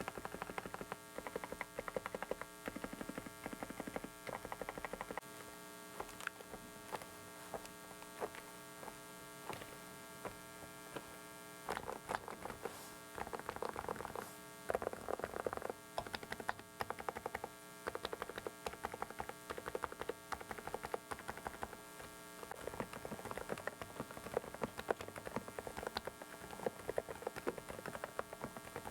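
Typing on a Dareu mechanical keyboard: fast runs of key clicks that thin out and pick up again, strongest about halfway through. Under it runs a steady electrical hum and whine from a faulty microphone.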